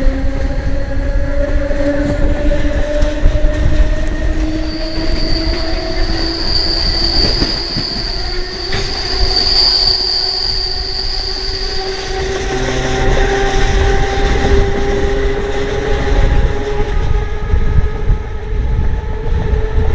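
CPTM electric multiple unit ER 4429 running along the track, its traction motors giving a whine that rises slowly and steadily in pitch as the train gathers speed, over a low rumble of wheels on rail. A high wheel squeal sets in about five seconds in and dies away about twelve seconds in.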